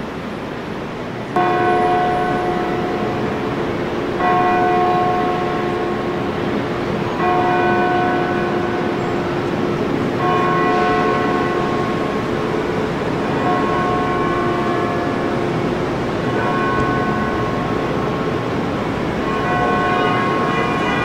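Large bronze bell hung in a wooden frame, tolled slowly: seven single strikes about three seconds apart, each ringing on until the next, over a steady hum of city traffic.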